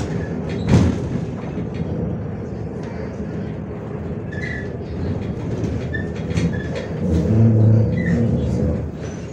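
Interior noise of a MAZ-105 articulated city bus: the engine and cabin rumble steadily. A sharp knock sounds about a second in, and a deeper hum swells briefly near the end.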